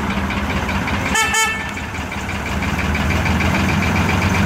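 Small three-cylinder Lister diesel locomotive's engine running steadily, with a brief toot of its horn about a second in.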